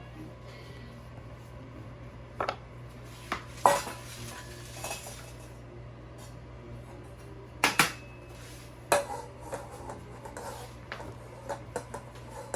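Kitchen utensils and a bowl knocking and clinking on a countertop as excess flour is cleared off the work surface. The sharp knocks are scattered, loudest around four and eight seconds in, with lighter clicks near the end.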